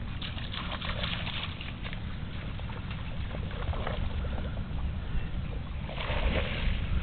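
Pit bull mix splashing through the shallows of a pond and swimming, with bursts of splashing about a second in and again near the end, over a steady low wind rumble on the microphone.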